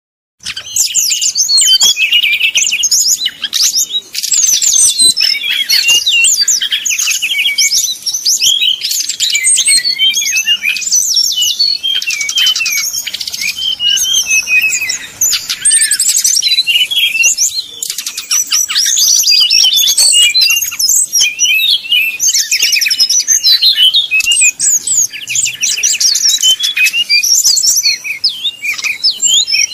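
A caged sikatan rimba dada coklat (SRDC) jungle flycatcher singing a loud, rapid, varied song of quick chirps, trills and sweeping notes, nearly without pause, with only a few brief breaks: the combative song that keepers call 'tarung' (fighting).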